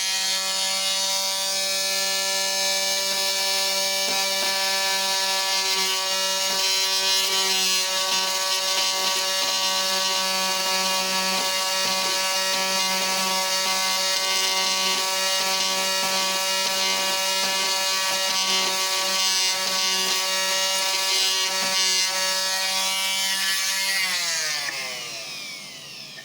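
Oscillating multi-tool running steadily on its lowest speed setting, a loud buzzing hum as its blade scrapes hardened glue out of a wooden corner. About 24 seconds in it is switched off and the hum falls in pitch and fades as the motor winds down.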